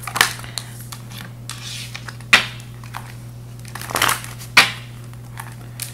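A deck of fortune-telling cards being shuffled by hand: irregular papery riffling and sliding of cards, with a few sharper card snaps, over a low steady hum.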